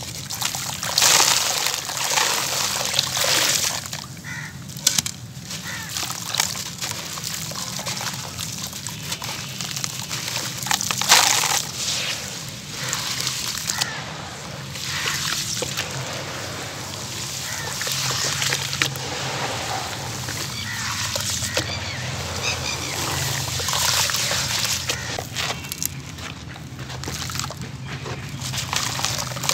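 Hands sloshing and swishing through water in a basin, with gritty cement crumbs and chunks crumbling and splashing into the water; the sound comes in uneven surges, the loudest about a second in and again about eleven seconds in.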